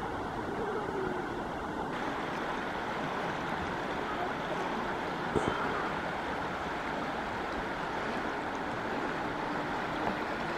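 Steady rushing of a shallow river running over rocks, with one short sharp click about five seconds in.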